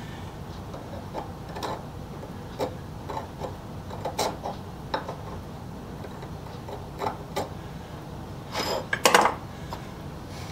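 Scattered light metal clicks and clinks of shop tools and steel parts being handled, over a steady low hum. A cluster of louder knocks comes about nine seconds in.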